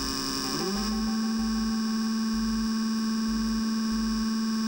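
Brushless DC motor with Hall sensors running, giving a steady whine with many overtones; about two-thirds of a second in the pitch dips and then holds lower, with a slow low pulsing underneath. Its Hall sensor leads are in the wrong order, so it idles on an unusually high current.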